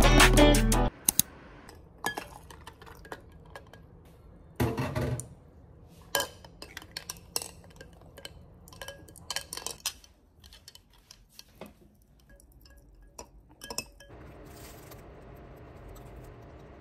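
Light clinks and knocks of hard objects being handled, some with a brief ringing tone, after music cuts off about a second in.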